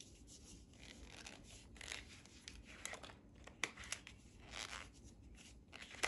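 Faint handling sounds: scattered small clicks, taps and rustles of hands and nail tools being moved and set down on the table.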